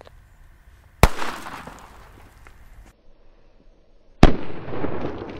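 Two sharp bangs of Lesli Shocks firecrackers (German Böller) going off about three seconds apart, each followed by an echo rolling away for a second or two.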